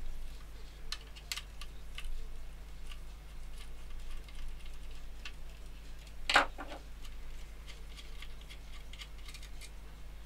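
Scattered light clicks and taps from handling a small electronic device's plastic case and circuit boards with a screwdriver, with one louder clack about six seconds in.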